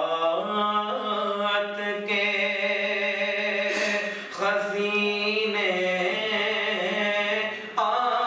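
A man singing solo in long, slowly gliding held notes, pausing briefly for breath about four seconds in and again near the end.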